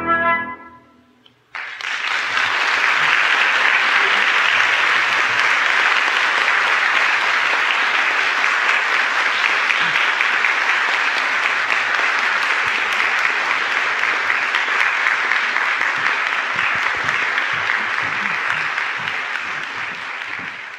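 The final chord of two flutes and piano ends, and about a second and a half later an audience starts applauding all at once. The clapping holds steady and thins a little near the end.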